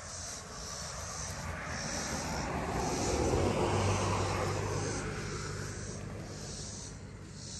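A passing vehicle's engine, swelling to its loudest about halfway through and then fading away, over a high insect chorus that pulses about once a second.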